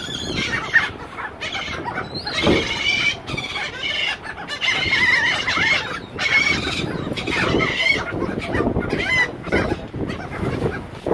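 Flock of laughing gulls squabbling over food, a constant clamour of short, overlapping calls.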